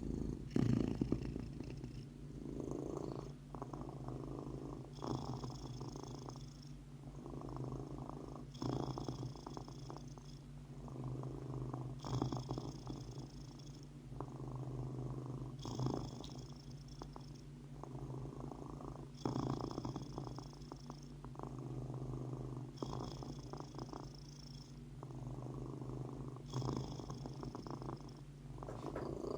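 A domestic cat purring steadily, the purr swelling and easing in a slow cycle about every three to four seconds.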